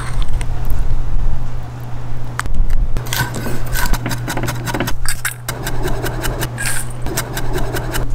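Chef's knife chopping garlic and herbs rapidly on a wooden cutting board, many quick strokes from about three seconds in, over a steady low hum.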